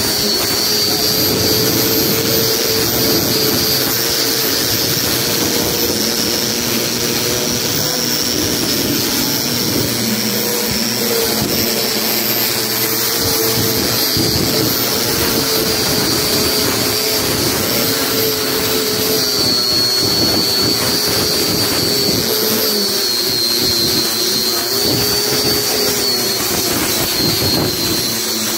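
Electric rotary sander running steadily, its spinning sanding disc grinding against fibreglass, with a continuous motor whine whose pitch drifts slightly as the load changes.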